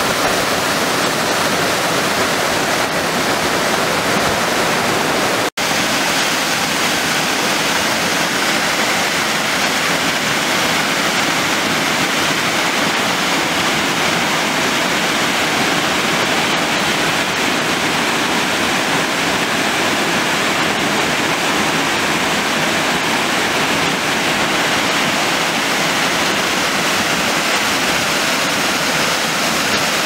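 Waterfall pouring into its plunge pool: a loud, steady rush of falling water that cuts out for an instant about five and a half seconds in.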